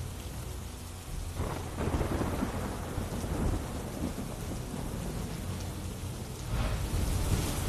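Steady rain with rolling rumbles of thunder, swelling about a second and a half in and again near the end.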